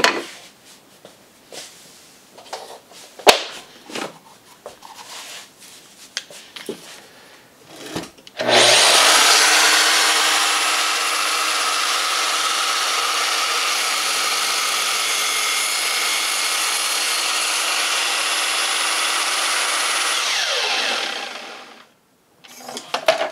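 Makita sliding mitre saw started about eight seconds in and running steadily for about twelve seconds while its blade is brought down through a wooden backer board for the first cut, then switched off and spinning down with a falling whine. Before it starts, a few small clicks and knocks of handling the saw.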